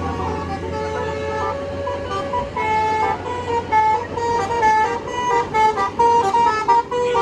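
Bus 'telolet basuri' multi-tone musical horn playing a tune of short, changing notes, louder from about two and a half seconds in, over a steady low engine hum.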